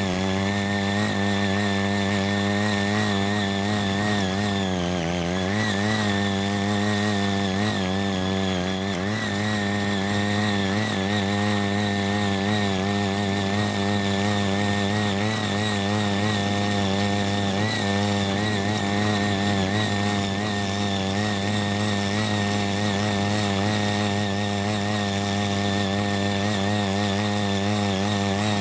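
Small engine of a CY80 mini rotary tiller running at high speed as its eight tines dig through hard, never-tilled soil. The engine note sags briefly under load about five seconds in and again about nine seconds in.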